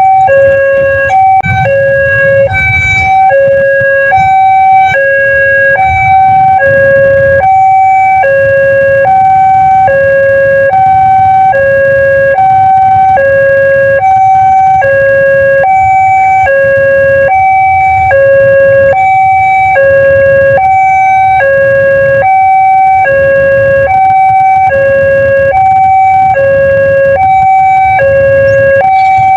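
Railway level-crossing warning siren of the Daop 2 Bandung type, sounding a two-tone alarm that switches between a higher and a lower tone about twice a second, with a low rumble underneath.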